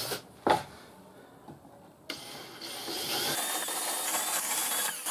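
Cordless drill boring into a plywood board: a brief burst of the drill about half a second in, then from about two seconds in a steady run of the drill cutting into the wood.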